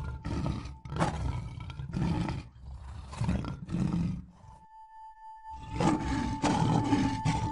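A lion and a tiger fighting, a run of harsh roars about one a second that breaks off for about a second midway and resumes, over a steady high tone on an old film soundtrack.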